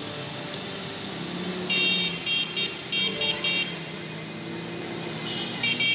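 Traffic moving through a flooded street: a steady wash of engine and water noise, with a high-pitched vehicle horn tooting in a run of short quick beeps about two seconds in and again near the end.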